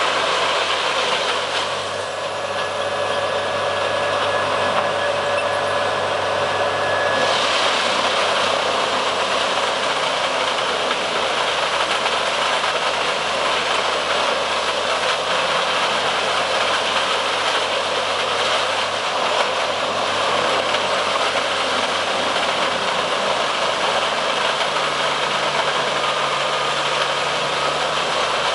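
Morbark 30RXL whole-tree chipper running under load, its engine and chipping mechanism making a loud, steady mechanical din while logs are fed in and chips are blown out. The higher, grinding part of the noise eases about two seconds in and comes back a few seconds later.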